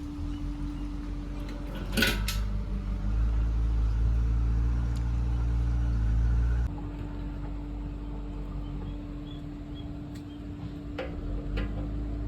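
A steady machine hum with one constant tone, louder for a few seconds in the middle, with a knock about two seconds in and a few clicks near the end.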